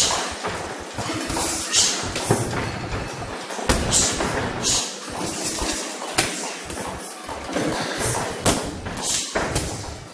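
Muay Thai sparring: gloved punches and kicks landing, making irregular thuds and slaps every second or so, with short hissing sounds beside some of the blows.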